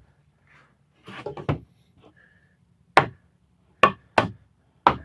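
Pallet-wood boards being handled and knocked together: a brief patch of rubbing and soft knocks about a second in, then four sharp wooden knocks spaced unevenly over the last two seconds.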